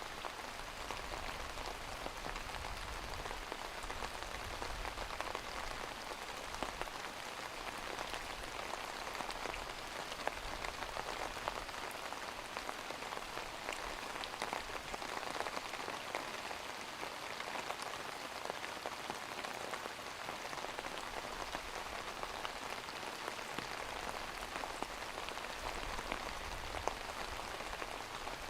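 Steady rain falling and pattering on a surface, with many small drop ticks.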